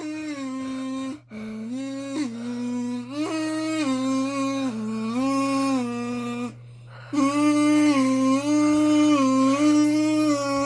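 A person humming a slow tune in held notes that step up and down, with a short break about a second in and a longer one about two-thirds through.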